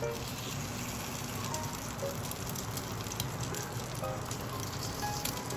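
Hot oil sizzling and crackling steadily in a frying pan as flour-and-egg-coated radish slices fry, with soft background music.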